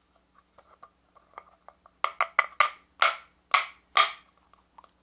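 Upturned plastic pudding cup knocked on a wooden plate to loosen the set pudding: faint light taps at first, then about seven sharp knocks in the second half.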